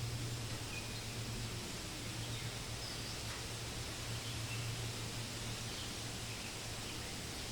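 Wind rustling steadily through forest leaves, with a few faint, brief bird chirps and a steady low hum underneath.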